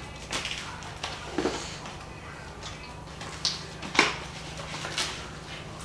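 A few sharp clicks and knocks as a cooking pot and its contents are handled at a stovetop, over a faint steady low hum.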